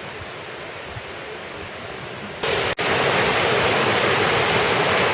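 Waterfall rushing in a steady hiss; about halfway through the sound jumps abruptly, after a split-second break, to a much louder, fuller rush of falling water.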